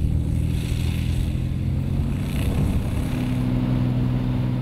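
Piston engine and propeller of a high-wing single-engine light aircraft running steadily as it taxis on an airstrip, the engine note stepping up slightly about three seconds in.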